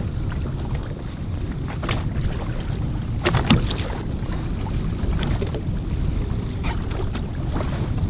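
Steady low rumble of a fishing boat out on open water, with wind buffeting the microphone and a few short clicks and knocks scattered through.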